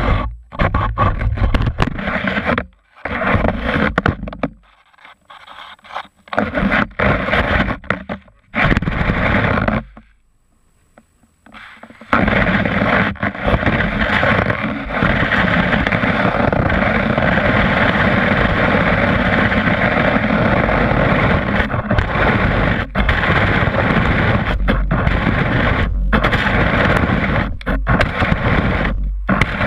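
Skis scraping and sliding over packed snow, heard close up. In the first dozen seconds it comes in short stop-start pushes with pauses, then it turns into a continuous scraping glide.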